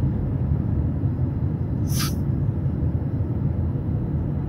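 Car cabin noise while driving: a steady low rumble of engine and tyres on the road, with a brief hiss about two seconds in.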